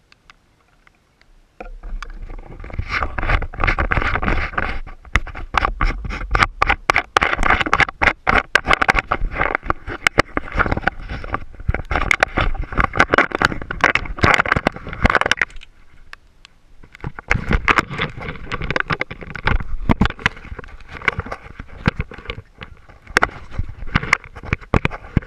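Handling noise on the camera: a nylon rain jacket rustling and scraping against the microphone, with many small knocks and clicks. It starts suddenly about two seconds in and eases briefly a little past the middle.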